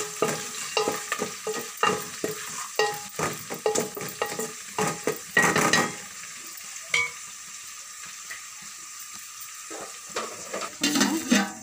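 Sliced onions, green chillies and whole spices frying in oil and ghee in a metal pot, stirred with a wooden spatula that scrapes the pot in quick strokes for about the first six seconds, then a steady sizzle. A clatter of cookware near the end.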